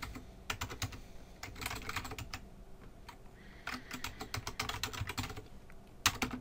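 Typing on a computer keyboard: quick keystrokes in several short bursts with brief pauses between them.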